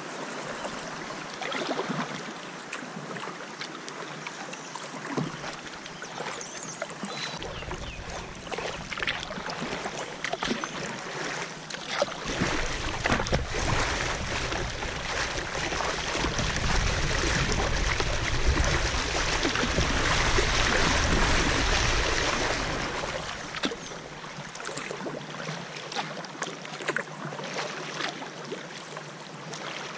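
Creek water rushing and splashing against a kayak's hull, with small splashes throughout; it grows louder for several seconds in the middle, where the kayak runs through choppy water, then eases off.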